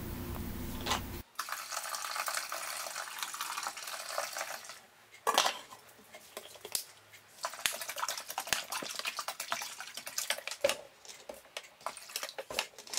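Faint kitchen sounds of dishes and liquid: scattered light clinks and knocks, the loudest about five seconds in, and liquid poured into a stainless-steel bowl of tea near the end.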